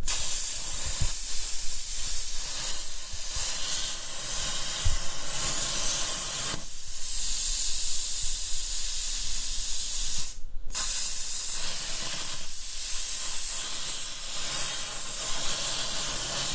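Air plasma cutter hissing steadily as it cuts through the steel floor pan of a 1979 VW Super Beetle. The hiss stops briefly about ten seconds in, then starts again.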